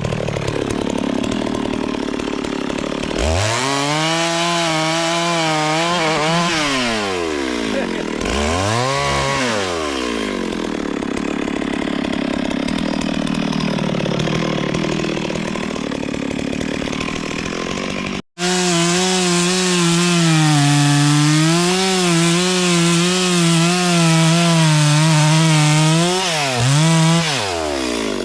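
Two-stroke chainsaw revving up and cutting wood, its engine pitch rising and falling as the chain bites and frees. After a brief break about two-thirds of the way through, it runs at high speed with a wavering pitch under load, then drops quickly twice near the end.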